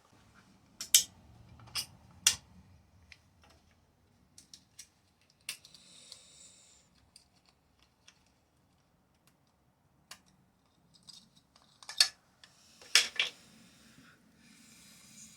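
Sharp clicks and snaps of small hard parts being handled as a chainsaw's recoil pull-cord starter is taken apart, the loudest about a second in, twice more shortly after, and a pair near the end. About 6 seconds in and again near the end come short rasping scrapes.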